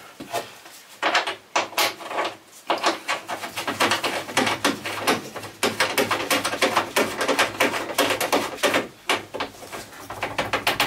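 Rapid, irregular metallic clicking and rattling of a bolt being turned by hand into a freshly set nut rivet (rivet nut) in a van's sheet-metal wall rail, testing that the rivet holds.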